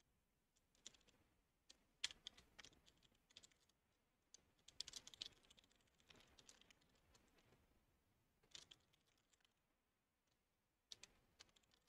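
Faint computer-keyboard typing: sparse key clicks in short clusters with pauses between them.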